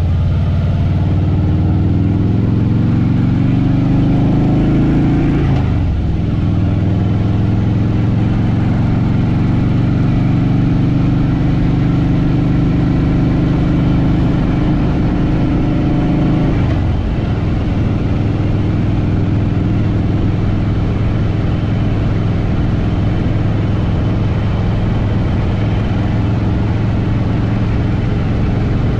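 Harley-Davidson Fat Boy Lo's V-twin engine under way. The pitch rises under acceleration, drops at a gear change about five and a half seconds in, and holds steady while cruising. It drops again about seventeen seconds in and settles at a lower steady pitch.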